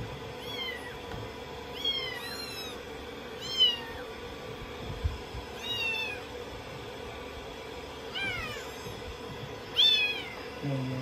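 A young kitten mewing over and over in short, high, thin cries, about eight of them, each rising and then falling in pitch. The kitten is crying while it is being shampooed in a basin of water.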